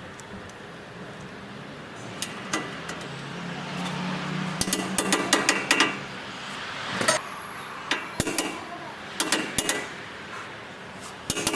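Metal tools knocking and clinking on metal parts during axle work: a few scattered taps, then a quick cluster of clanks, then single knocks, over a low steady hum.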